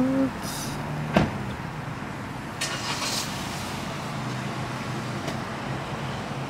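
Chevrolet car's engine idling, heard from inside the cabin as a steady low hum. There is a sharp click about a second in and a couple of brief hissy noises.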